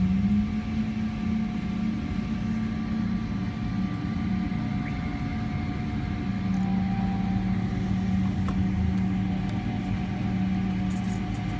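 Steady droning hum inside the cabin of a Boeing 777-300ER during pushback, several held tones over a low rumble, one of them shifting up slightly about halfway through.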